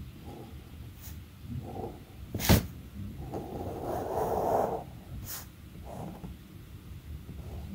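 Sharpie fine-tip pen drawing on paper: short scratchy strokes, with a longer stroke from about three to nearly five seconds in. A single sharp tap, the loudest sound, comes about two and a half seconds in.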